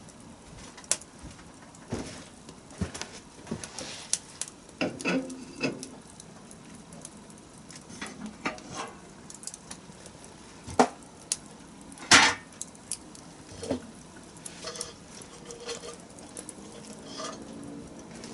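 Wood fire crackling, with irregular sharp pops; the loudest pops come about eleven and twelve seconds in.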